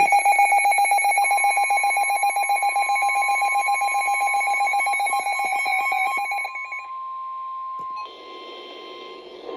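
Rapid pulsing electronic alarm beeps over a steady NOAA Weather Radio warning alarm tone, the attention signal that opens a tornado warning broadcast. The beeping stops about six and a half seconds in, leaving the steady tone alone over faint hiss.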